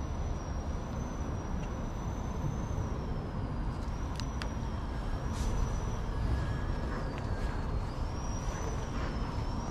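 Street ambience: a steady low rumble of passing traffic, with a faint high whine that wavers in pitch and a few light clicks about four to five seconds in.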